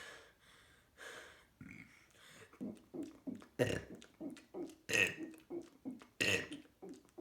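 A person burping over and over: a string of short burps, sparse at first and then coming in quick succession from about two and a half seconds in, with a few louder than the rest.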